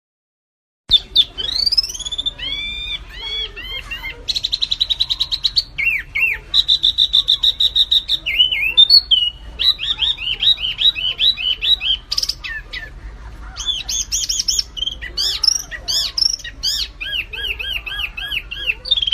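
Songbird tutor song: a small bird's rapid, varied song of repeated slurred whistles, chirps and fast buzzy trills, starting about a second in.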